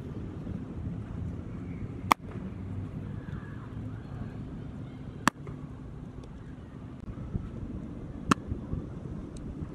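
Baseball popping into a catcher's leather mitt three times, each a single sharp crack about three seconds apart, over steady low outdoor noise.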